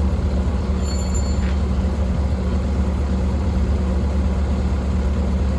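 Skid loader engine running steadily, a constant low drone.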